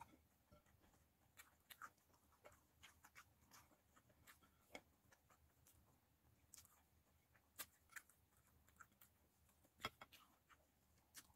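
Faint eating sounds of fried fish and rice eaten by hand: scattered soft clicks and smacks from chewing and from fingers picking at the fish on the plate, irregular, about one every second or so.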